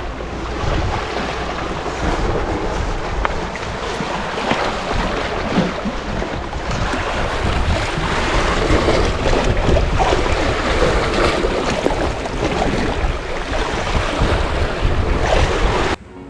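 Strong wind buffeting the microphone over sea waves: a steady rushing noise with a heavy low rumble that cuts off abruptly just before the end.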